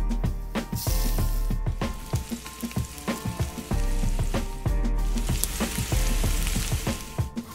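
Cooked barnyard millet sizzling in a hot sesame-oil tempering in a kadai, under background music with a steady beat.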